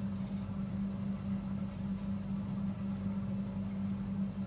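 Steady low hum with a constant pitch and no change in level, like a running motor or electrical hum in the room.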